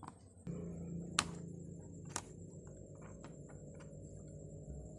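Metal tweezers clicking and tapping against a phone's plastic frame and parts during disassembly, with two sharper clicks about a second apart. Under the clicks, a steady low hum begins about half a second in.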